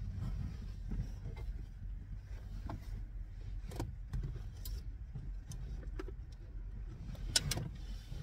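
Knocks, clicks and rustling of a person climbing over the seats and gear inside a minivan, with a louder cluster of sharp clicks near the end, over a steady low rumble.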